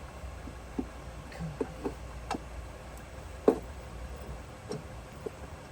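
Scattered clicks and light knocks of parts and tools being handled during engine reassembly, about eight in all, with the loudest a sharp knock a little past halfway. A low steady hum runs underneath.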